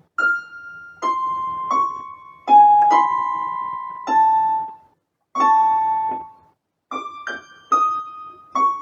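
Yamaha PSR-F51 portable keyboard playing a simple melody in a piano voice, one note at a time, each note sounding and then fading, with two short pauses in the tune.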